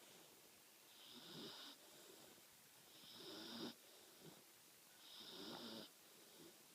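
A 13-week-old Labradoodle puppy snoring softly in her sleep: three slow snores about two seconds apart.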